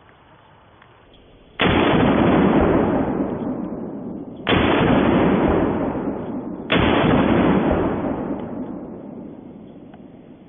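Three single shots from a Bushmaster AR-15 rifle, about three and two seconds apart. Each shot is followed by a long echo that fades over a couple of seconds.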